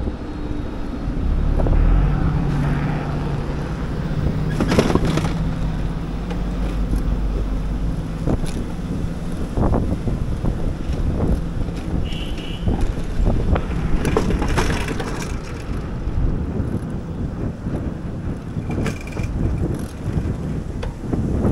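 Bicycle ride noise: tyres rumbling over pavement with frequent rattles and knocks from the bike and camera mount, and wind on the microphone. A low hum runs under it for the first several seconds.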